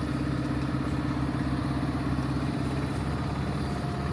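Tractor's diesel engine running at a steady speed.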